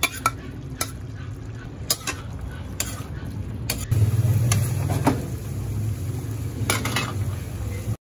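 A utensil stirring cucumber slices and pumpkin through sauce in a metal wok, clanking against the pan every second or so over a low steady rumble. The sound cuts off suddenly near the end.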